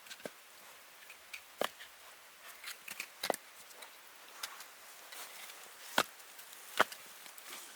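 A handful of sharp, short cracks or knocks at uneven intervals, the loudest two near the end.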